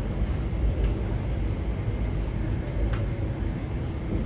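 Steady low rumble of an MTR Tuen Ma Line train running, heard from inside the passenger car, with a couple of faint clicks.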